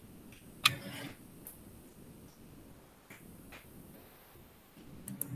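Quiet room with one sharp knock about two-thirds of a second in, a few faint ticks, then two quick clicks near the end: a computer mouse button being clicked.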